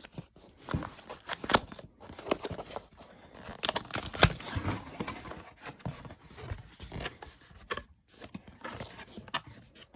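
Cardboard camera box being opened by hand: irregular handling noise of cardboard and packing, with many sharp clicks and scrapes at uneven intervals.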